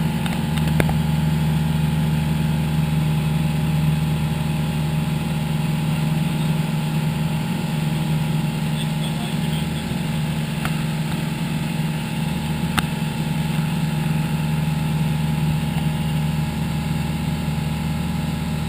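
Pipistrel Sinus motorglider's engine and propeller running at a steady drone in flight, heard from inside the cockpit.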